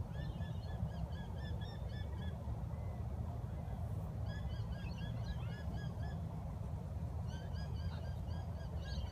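A bird calling in three quick runs of short, repeated chirping notes, about four or five a second, over a steady low rumble.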